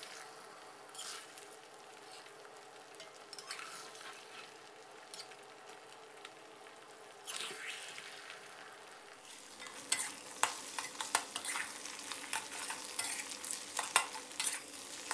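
Eggs frying in oil in a stainless steel wok, sizzling, while a metal spatula scrapes and chops them up. From about ten seconds in, the spatula strokes come quickly, clicking and scraping against the pan.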